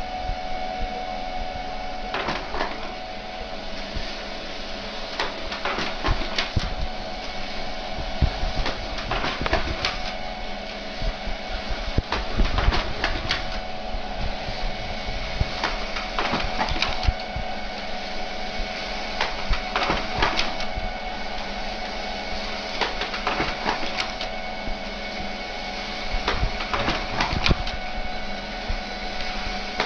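A printer running, with a steady mechanical hum and frequent irregular clicks and knocks of its moving parts.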